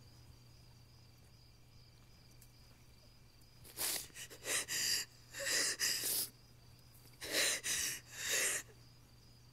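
A woman crying: a run of ragged, gasping sobbing breaths, several in quick succession starting about four seconds in. Underneath is a steady low hum and faint high chirping of crickets.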